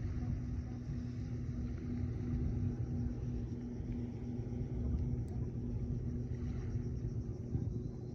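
An engine running steadily: a low rumble with a constant hum.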